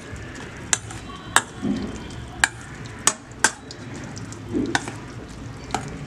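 Metal spoon stirring chopped spinach and water in a stainless steel bowl, the spoon clinking sharply against the bowl's side seven times.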